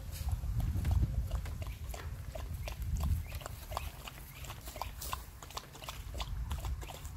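Two dogs, a husky and a malamute, eating off a bowl and a plate: quick wet clicks of licking and chewing, several a second, with the odd knock of the dish on the wooden table.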